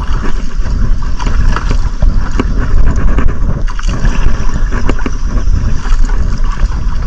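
Wind buffeting the microphone over water sloshing around a small outrigger boat, with scattered clicks.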